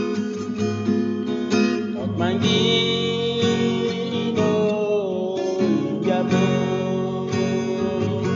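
Song with strummed acoustic guitar, and a singing voice holding a long, wavering note from about two seconds in.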